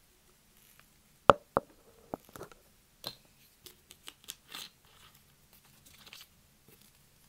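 A cup set down on a table with two sharp knocks about a second in, followed by scattered clicks and crinkling from hands working a small plastic item.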